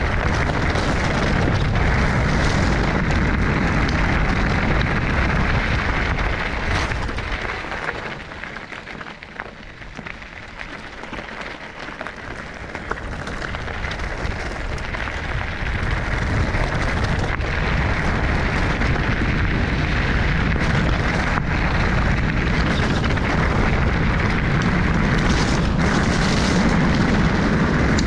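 Wind buffeting a GoPro's microphone: a loud, rough rumble with no engine note. It eases for a few seconds about eight seconds in, then builds back up.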